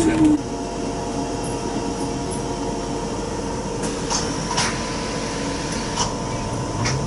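Steady electrical hum with several fixed whining tones inside a stationary trolleybus, a few light clicks over it. At the very start a falling motor whine cuts off abruptly.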